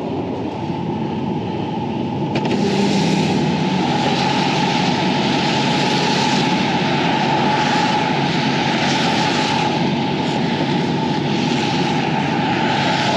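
Steady engine and road noise heard inside a semi truck's cab while driving on wet roads. A hiss of tyre spray and rain swells about two seconds in and then holds.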